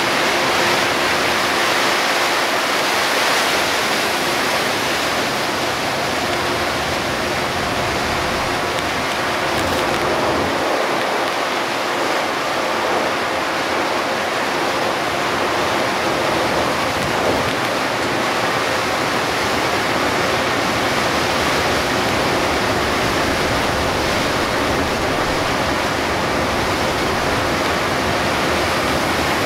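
Steady loud rush of heavy rain and tyre spray on a waterlogged road, heard inside a moving Hino Selega HD coach, with a faint steady engine hum underneath.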